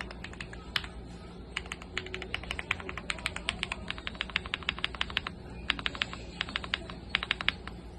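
Typing on a Cub65 mechanical keyboard with Akko Cream Yellow Pro linear switches: rapid keystrokes in quick runs, broken by brief pauses about a second in and again past the middle.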